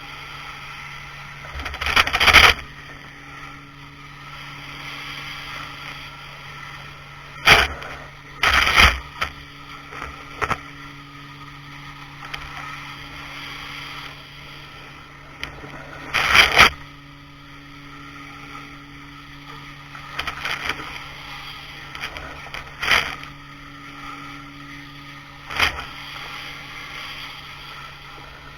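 Pressure washer running with a steady hum, its high-pressure jet hissing in short loud spurts several times.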